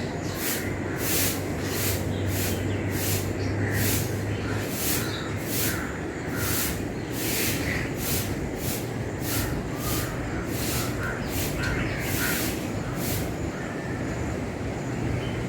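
Broom sweeping outdoor ground in steady, repeated swishing strokes, a little under two a second, with faint bird chirps and a steady low hum underneath.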